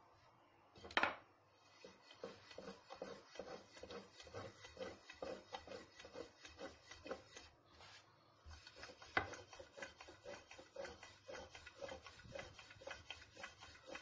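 Thin wooden rolling pin (oklava) rolling lavash dough on a floured glass tray: quick back-and-forth strokes, about three a second, knocking and rubbing against the glass. There is a sharp knock about a second in and another about nine seconds in, with a short pause near eight seconds.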